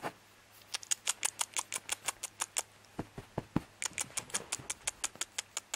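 Quick clicking kissy noises made with the mouth to call puppies' attention: two runs of sharp clicks, several a second, with a short pause about halfway that holds a few duller knocks.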